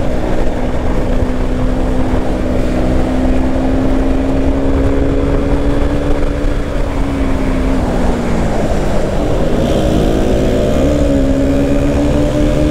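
Motorcycle engine running at cruising speed under a heavy low rumble of wind on the microphone. About two-thirds of the way through the engine note sinks as the rider rolls off, then steps back up and climbs again as he gets back on the throttle.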